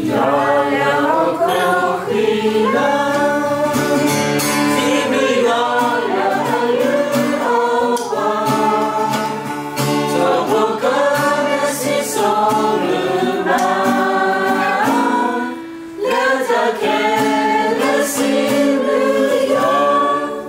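A group of people singing a hymn together, with an acoustic guitar strumming along. The singing pauses briefly between phrases about three-quarters of the way through.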